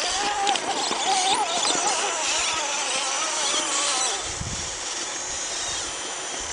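RC rock crawler's electric motor and geared drivetrain whining as it climbs a rocky hill, the pitch wavering up and down with the throttle. The whine fades out about four seconds in.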